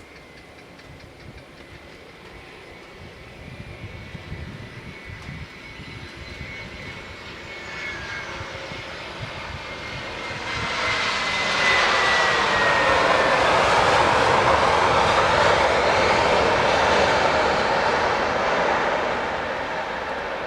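Airbus A320 jet airliner passing on its landing approach. A thin engine whine falls slowly in pitch as it draws near, and the engine noise swells to a loud peak about twelve seconds in, holds for several seconds, then begins to fade.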